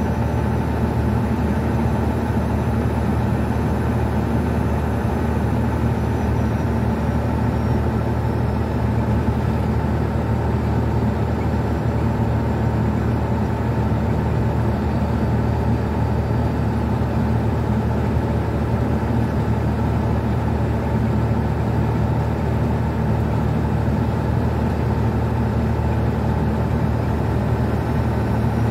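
Old International semi truck's diesel engine running steadily at highway cruising speed, heard inside the cab along with tyre and road noise.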